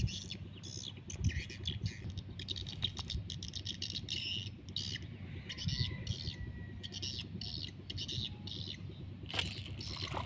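Small bird chirping over and over, a few short high calls a second, over a low steady rumble.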